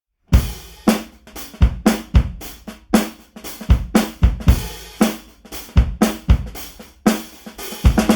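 Drum kit playing a solo beat to open a song: bass drum and snare hits with hi-hat and cymbals, in a steady repeating rhythm that starts about a third of a second in. A quick run of hits near the end leads into the rest of the band.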